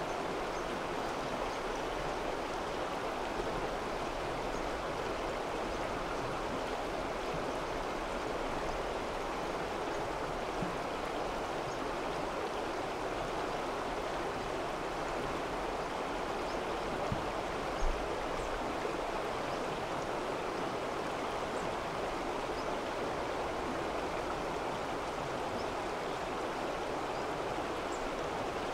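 Rushing stream: a steady, even wash of flowing water, with one soft low knock about two-thirds of the way in.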